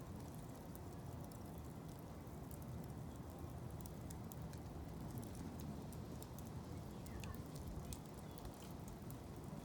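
Blocks of wood burning in a fire basket, with frequent sharp crackles and pops over a steady low rumble.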